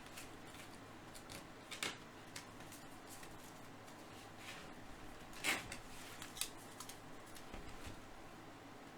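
Faint handling of baseball trading cards: cards sliding and scraping against each other as a pack is flipped through, with a few soft clicks and scrapes, the loudest about five and a half seconds in.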